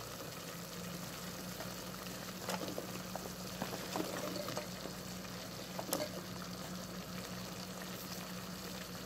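Chicken hearts in soy-vinegar sauce simmering in a pot, a steady sizzle, with a few short knocks as chunks of potato and carrot are dropped in.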